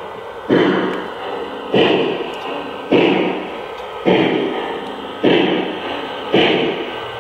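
O scale Santa Fe 4-8-4 Northern model steam locomotive's sound system playing slow steam chuffs, six of them about a second apart, each a sharp puff that fades away, as the engine creeps along.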